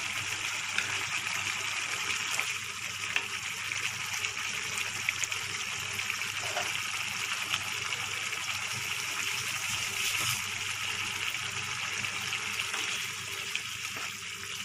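Thick prawn-and-potato posto gravy simmering in a frying pan on the stove, a steady sizzling hiss as it reduces, with a few faint clicks.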